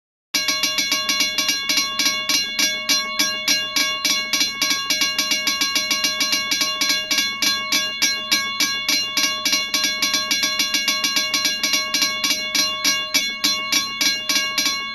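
Railroad crossing bell ringing with rapid, evenly spaced strikes, cutting off near the end with a brief ring-out.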